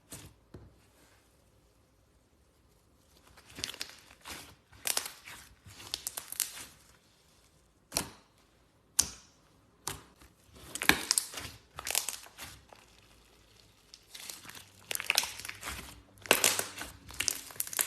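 Glitter slime being squished and stretched by hand: irregular bursts of crackling and squelching, with a couple of sharp pops about halfway through.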